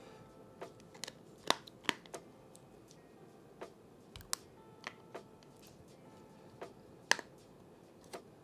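Small irregular clicks and taps of a precision screwdriver and tiny screw against an iPhone 11's internal metal plate while a roughly 1.5 mm screw is being fitted. The clicks are scattered, with the sharpest at about a second and a half in, just before two seconds, and about seven seconds in.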